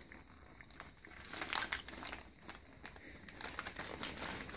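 Crumpled paper wrapping crinkling and rustling in the hands as a wrapped package is unwrapped: a fast run of small crackles, growing denser and louder about three and a half seconds in.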